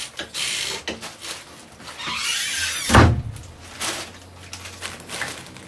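Rustling noise, then a single loud thump about three seconds in, typical of a wooden door banging shut.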